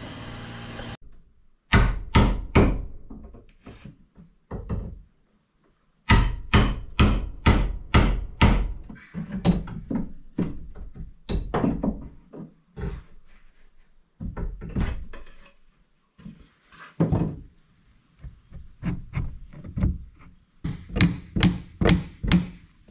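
Hammer blows on wooden window trim, in quick runs of sharp knocks, as the trim is knocked and pried loose from the shed wall.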